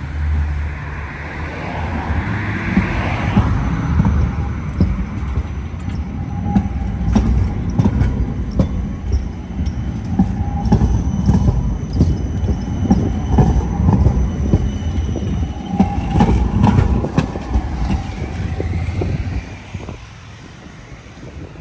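Siemens Combino low-floor electric tram passing close by. Its wheels knock in an irregular run over points and crossings, with a steady rumble, a thin high whine and brief wheel squeals on the curve. The sound drops away sharply near the end.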